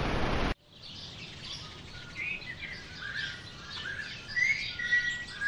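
A loud hiss of noise cuts off sharply about half a second in. Then birds chirp and call, many short overlapping whistled notes over a faint outdoor background.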